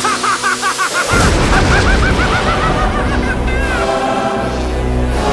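A cartoon character's rapid, laugh-like run of syllables, then about a second in a sudden deep boom that carries on as a low rumble, under music.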